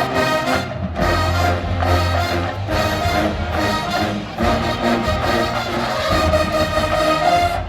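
College marching band playing, brass section over a drumline beat, ending on a held note near the end.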